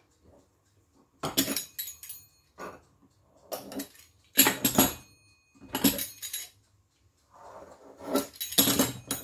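A small kitchen knife scraping and clinking against a stone countertop as dough is trimmed, in about six short bouts of metallic clatter with brief ringing, starting about a second in.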